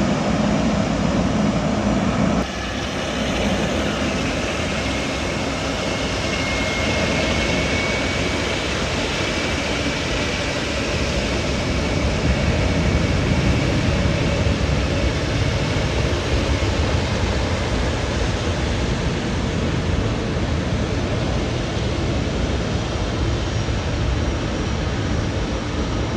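Boeing 777-300ER's GE90 turbofan jet engines running: a steady rushing noise with a faint high whine. The sound changes abruptly about two seconds in.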